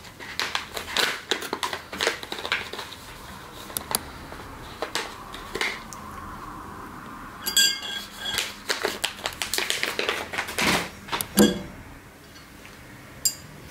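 Crinkling and rustling of a paper supplement sachet being torn open and handled, with scattered clicks and taps. A ringing glass clink comes about halfway through, and a louder knock near the end as a glass jar is handled.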